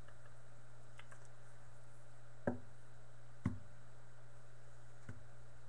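A steady low hum with three short knocks in the second half, about a second or more apart, the first two the loudest, and a couple of faint clicks before them.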